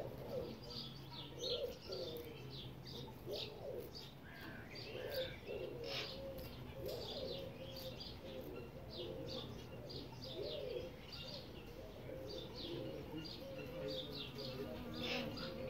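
Birds calling: a continuous run of short high chirps, several a second, over lower wavering calls.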